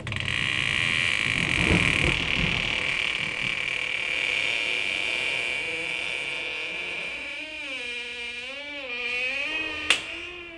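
Horror sound effect: a loud, steady hiss that slowly fades, joined about seven seconds in by a wailing tone with several overtones that wavers slowly up and down, and a single sharp crack near the end.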